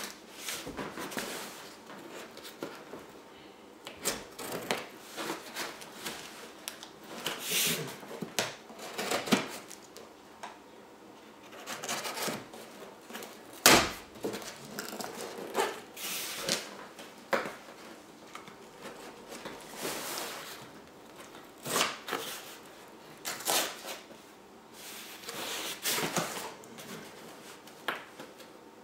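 Packing tape on a cardboard shipping box being slit with a folding pocket knife and pulled away: an irregular run of scrapes, rips and light knocks, with one sharp knock, the loudest, about halfway through.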